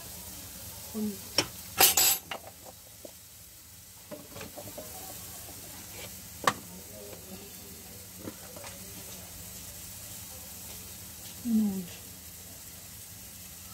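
Potato and ridge-gourd pieces dry-cooking in a nonstick frying pan without oil, with a faint steady sizzle. Over it come a few sharp clinks and knocks of a metal spoon against the pan, the loudest cluster about two seconds in and another at about six and a half seconds.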